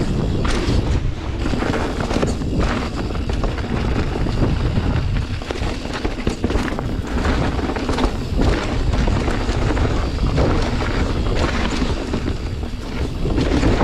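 Wind buffeting the camera microphone as a full-suspension 29er mountain bike is ridden fast down a dirt trail, with tyre roar and frequent knocks and rattles from the bike going over bumps.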